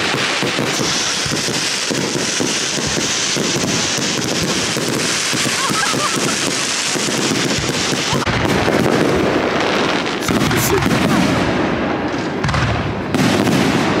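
Fireworks display going off: dense crackling and popping for the first several seconds. About eight seconds in, the sound changes to louder crowd noise with a few separate sharp bangs near the end.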